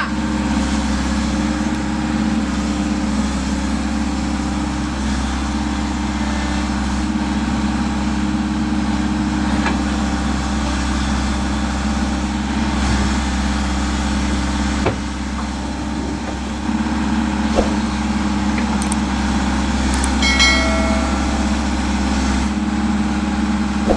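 Volvo excavator's diesel engine running at a steady pitch, with a few sharp knocks and clanks. A brief high-pitched tone sounds about twenty seconds in.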